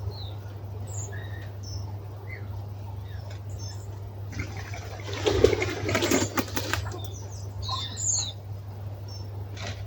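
Small birds giving short, high chirping calls as they settle into a winter roost in a hawthorn tree. A loud flurry of wing flapping and rustling among the branches comes about halfway through and lasts a couple of seconds.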